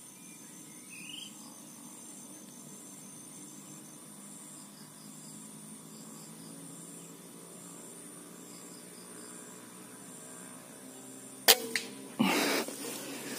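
A single sharp air rifle shot near the end, followed a moment later by about a second of loud rustling noise. Before the shot there is only faint, steady background noise.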